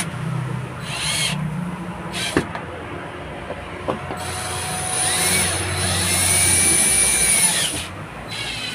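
Cordless drill driving screws to fasten a headrest bracket to a van seat back. It runs in short bursts, then in one longer run of a few seconds with a steady high whine, with a couple of sharp clicks in between.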